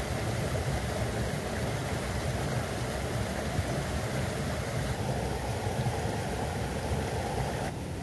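Steady rushing of water, a dense even noise with a deep rumble underneath. The higher hiss drops away suddenly just before the end.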